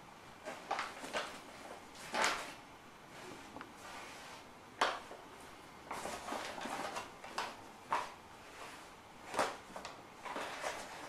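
A paper flour bag rustling as flour is tipped out and spread by hand over a wooden pastry board: irregular soft swishes and rustles, with one sharp knock about five seconds in.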